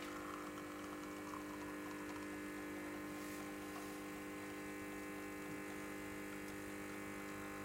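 Gaggia Classic espresso machine's vibratory pump running steadily while pulling a double shot, a constant even hum.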